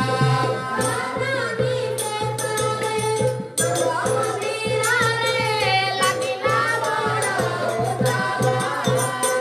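Odia sankirtan music: a high female voice singing a devotional kirtan song over a steady held drone. Two-headed barrel drums beat a busy rhythm beneath it, with a bright jingling percussion layer on top.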